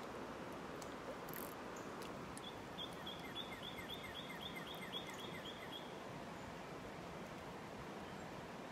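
Steady, faint rush of river water, with a bird calling a quick series of about a dozen short repeated notes, around four a second, for about three seconds in the middle.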